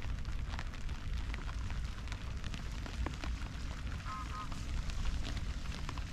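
Wind buffeting the microphone: a steady low rumble with scattered faint ticks. About four seconds in, two short high notes sound.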